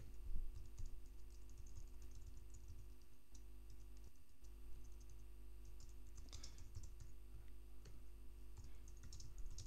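Faint typing on a computer keyboard: irregular keystrokes, with a quicker flurry a little past halfway.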